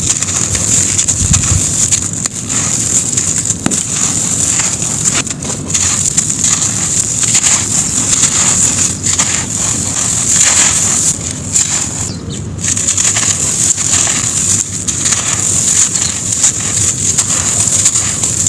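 Dry grainy sand-cement crumbling and crunching on a floor: a dense, continuous crackle made of many small, sharp crunches.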